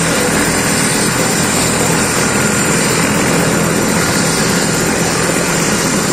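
Helicopter running on the ground with its four-bladed main rotor turning: a loud, steady rotor and engine noise with a constant high whine over it.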